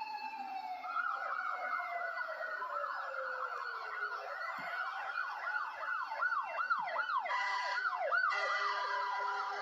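Siren yelping in quick repeated rising-and-falling sweeps, about three a second, with a hiss joining in near the end.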